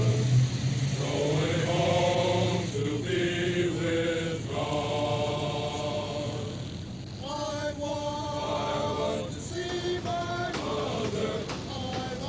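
Chanting voices: a slow line of held notes that moves to a new pitch every second or so.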